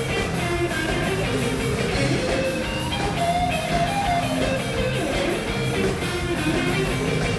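Rock band music: guitar with drums keeping a steady beat, an instrumental passage without vocals.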